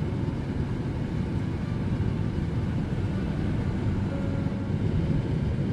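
Vehicle running steadily along a paved road: engine and tyre noise, an even low rumble heard from the vehicle's own cab.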